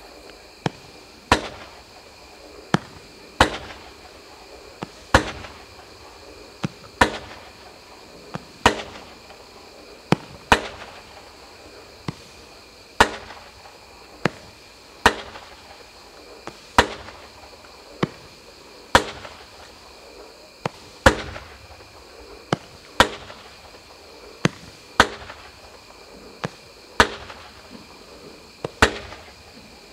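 A 19-shot, 30 mm fireworks cake (Svea Cleopatra) firing one shot about every two seconds. Each shot is a launch pop followed under a second later by a louder bang as the shell breaks in the air.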